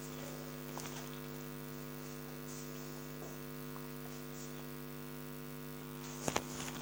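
Steady electrical hum in the recording, a low buzz with several even overtones, with a couple of faint clicks near the end.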